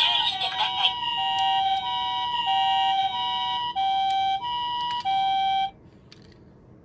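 Two-tone ambulance siren alternating steadily between a high and a low note, about two notes a second. A falling wail overlaps it in the first second, and it cuts off abruptly near the end.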